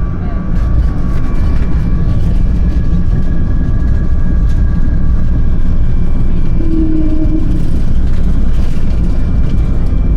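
Airbus A220-300 jet airliner landing: a steady, loud low rumble with faint steady whining tones from its Pratt & Whitney PW1500G turbofan engines.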